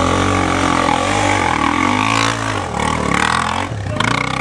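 Dirt bike engine revving hard, its pitch rising and falling several times with the throttle as the bike is worked up a steep rock climb.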